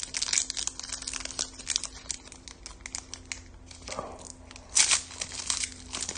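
Foil wrapper of a Panini Diamond Kings card pack crinkling in the hands as it is torn open, with a louder rip a little under five seconds in.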